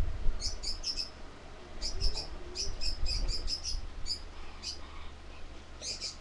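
Small birds chirping in quick runs of short, high chirps, several a second, fading out near the end. Low dull thumps and rumble underneath are the loudest sounds.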